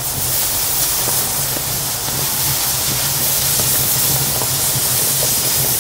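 Oxygen cutting torch blowing a steady, loud hiss of pure oxygen onto red-hot steel, with a steady low hum underneath. The acetylene is shut off, and the iron burning in the oxygen jet keeps the cut going on its own.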